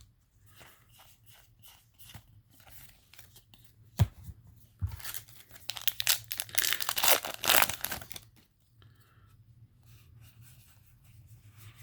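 A foil trading-card booster pack being torn open, a crinkling rip lasting about three seconds in the middle. Around it is quieter rustling of cards being handled, with one sharp tap shortly before the rip.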